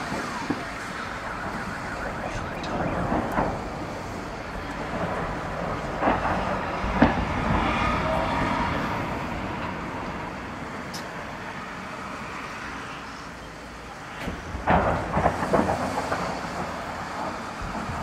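Distant shelling by Uragan multiple rocket launchers. Dull blasts come about six seconds in and again in a cluster near fifteen seconds, over a wailing siren and city rumble.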